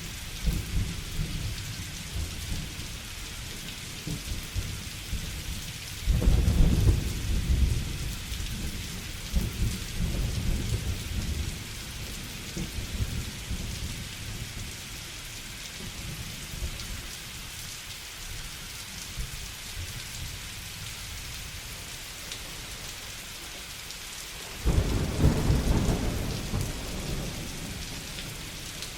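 Steady heavy rain hissing throughout, with rolls of thunder: a loud clap and rumble about six seconds in, lighter rumbling after it, and another loud rumble near the end.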